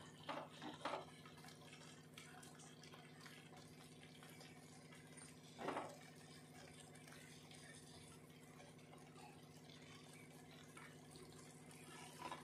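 Near silence over a steady low hum, with a few soft taps just after the start as the last fried potato and eggplant pieces slide from a plate into the pan, and one more tap about six seconds in.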